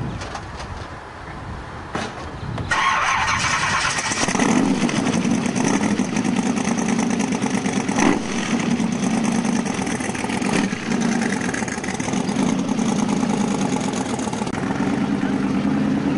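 Bill Thomas Cheetah's V8 engine being started: the starter cranks for about a second and a half, the engine catches about four seconds in, and it then runs on steadily at idle.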